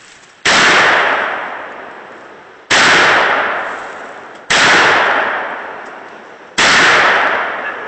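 Norinco SKS rifle, chambered in 7.62×39mm, fired semi-automatically four times about two seconds apart, each shot followed by a long fading tail.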